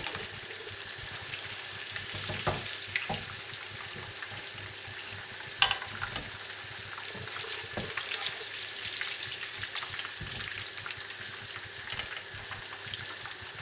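Hot vegetable oil sizzling steadily in a frying pan as fried beef sausages are lifted out with a metal skimmer. A few short clicks of the skimmer against the pan, the sharpest about five and a half seconds in.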